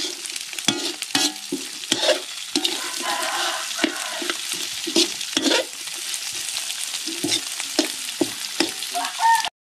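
Rat meat stir-frying in a steel wok over a wood fire: steady sizzling, with a metal spatula scraping and knocking against the wok again and again at an uneven pace.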